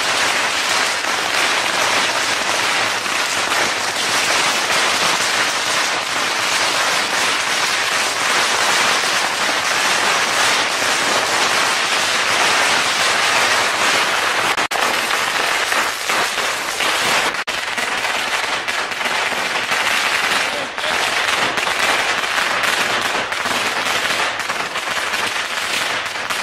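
A long string of firecrackers going off in a dense, continuous rapid crackle, with a few brief breaks in the last several seconds.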